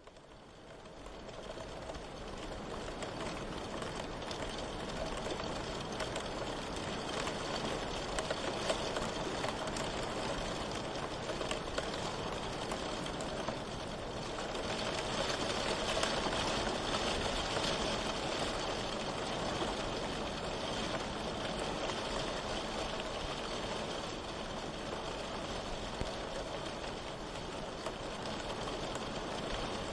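Steady rain falling, an even hiss of drops that fades in over the first couple of seconds and then holds level.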